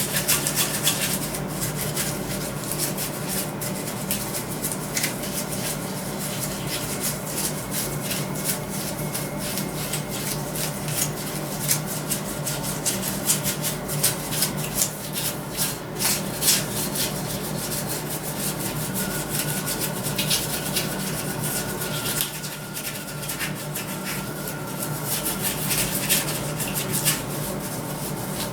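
Stiff brush scrubbing a motorcycle cylinder head with cleaner, in rapid, irregular back-and-forth strokes, over a steady low hum.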